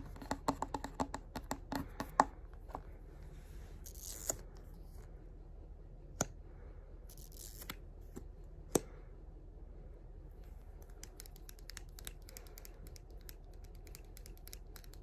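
Fingernails tapping and scratching on plastic makeup items, a mascara tube among them, held right against the microphone ASMR-style. A quick flurry of clicks at the start, a short scraping hiss a few seconds in, two single sharp taps, then a long run of fast fine ticks near the end.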